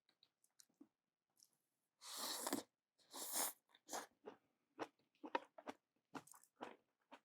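Someone eating close to the microphone: two loud breathy bursts of air at the mouth, a couple of seconds in, then a run of short chewing and crunching noises.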